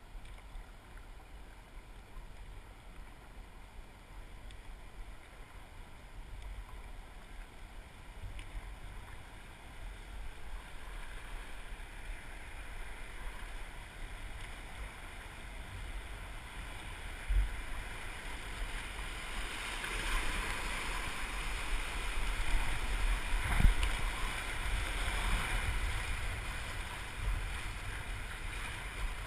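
River rapids rushing, growing louder as the canoe approaches and runs into the whitewater, over a low rumble of wind on the microphone. A couple of sharp knocks, the louder one about two-thirds of the way through.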